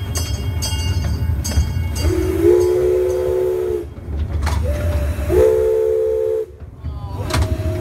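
Small steam train running with a steady low rumble while its whistle blows two long blasts, several notes sounding together, about two seconds in and again about five seconds in, with a brief single note between them.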